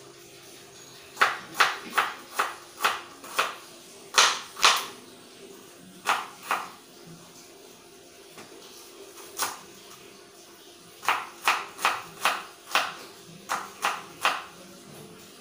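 Kitchen knife chopping onions on a cutting board: sharp knocks in quick runs of several strokes, about two to three a second, with pauses between the runs.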